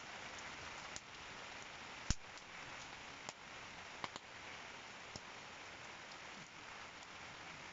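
Wood campfire crackling: a steady hiss with scattered sharp pops, the loudest about two seconds in.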